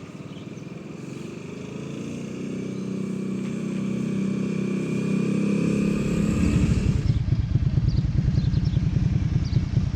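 Suzuki Intruder Volusia V-twin cruiser motorcycle accelerating, its engine note rising in pitch and growing louder for about six seconds. Then the engine is heard close up as a loud, deep, fast-pulsing exhaust note.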